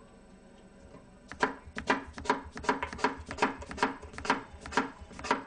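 Kitchen knife slicing an apple into pieces on a plastic cutting board: a steady series of sharp knife-on-board knocks, about three a second, starting about a second in.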